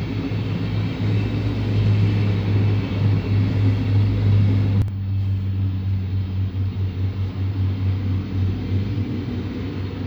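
Two coupled VT 648 diesel railcars running past with a steady low engine drone, loudest in the first half. A sharp click comes about five seconds in.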